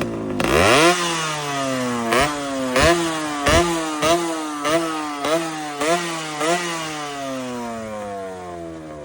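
Ported Yamaha RX100 two-stroke single, bored out to 132 cc with a 135 kit and running a stock carburetor, being revved in a quick run of throttle blips, about nine, each a sharp rise and a slower fall. After the last blip the revs fall away steadily toward idle.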